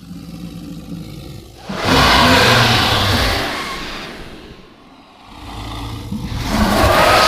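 Dragon roar sound effects: a low growl, then a long loud roar about two seconds in that dies away, and a second roar building near the end.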